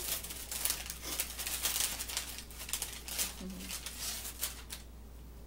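Thin paper bakery bag crinkling and rustling as it is handled and opened, stopping shortly before the end.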